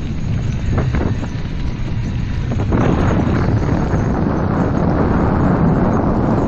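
Wind buffeting the microphone and wheels rolling fast over a dirt trail, with a few short knocks early on; the rolling noise grows denser and louder about halfway through.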